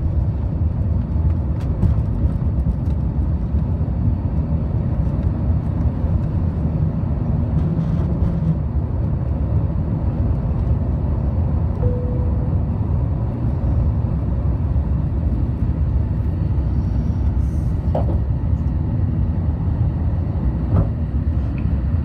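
Steady, loud low rumble of an Airbus A350-900's engines and airflow, heard from inside the passenger cabin.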